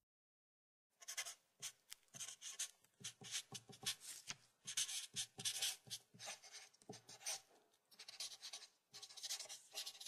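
Marker pen writing letters on a strip of tape stuck to a wall: a quick run of short pen strokes starting about a second in, with a brief pause near the eight-second mark.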